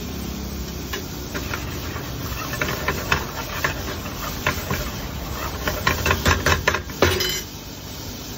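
Hot oil sizzling in a steel frying pan with ginger-garlic paste and cumin frying in it, while a metal ladle clicks and scrapes against the pan, ending in a louder ringing clink about seven seconds in.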